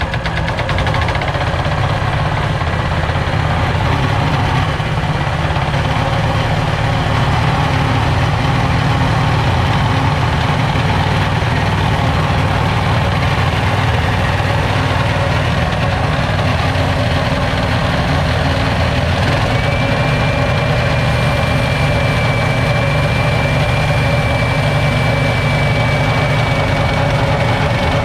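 A 6.5 hp single-cylinder four-stroke petrol engine running steadily just after being started, turning a belt-driven FFC 15 grain-flour grinder. A thin, steady, high whine joins in about two-thirds of the way through.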